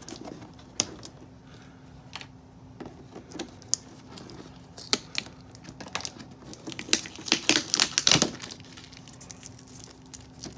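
Clear tape being peeled and pulled off a cardboard box, crackling and snapping in scattered bursts, busiest in a dense run about seven to eight seconds in.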